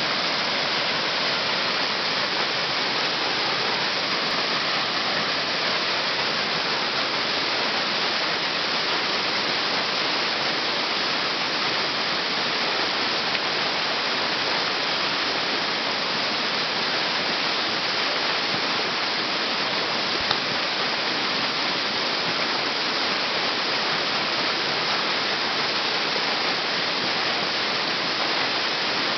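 Tall, narrow waterfall pouring down a rock face onto rocks at its base: a steady, unbroken rush of falling water.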